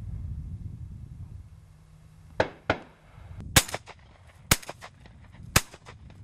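Shotgun firing three loud shots about a second apart in the second half, just after two fainter shots. Wind rumbles on the microphone at first.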